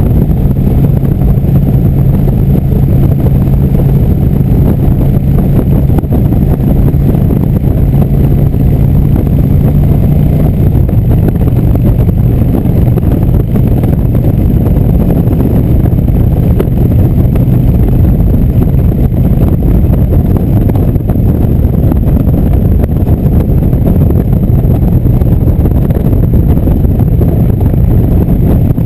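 Indian motorcycle's V-twin engine running steadily at cruising speed, with wind rushing over the microphone. The engine note drops slightly about ten seconds in.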